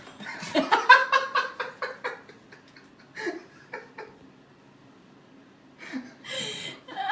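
A person laughing off camera: a quick run of short "ha-ha" bursts about a second in, a couple of single laughs after it, and a breathy laugh near the end.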